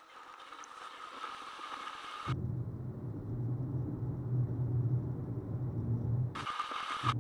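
Road noise inside a moving car's cabin: a steady hiss that cuts off abruptly about two seconds in, giving way to a low, steady rumble, with the hiss briefly returning near the end.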